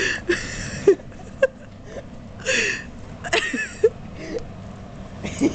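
A person's voice making three short, high-pitched vocal sounds, near the start, about two and a half seconds in and about three and a half seconds in, with no words.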